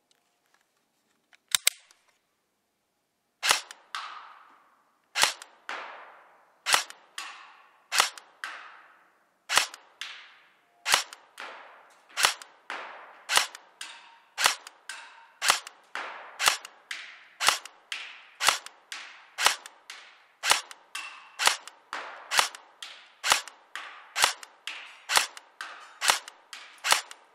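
Real Sword Type 56 airsoft electric gun firing single shots on semi-auto, about thirty sharp reports, each with a short ringing tail. The shots come about one every second and a half at first, then quicken to nearly two a second. A couple of light clicks are heard shortly before the first shot.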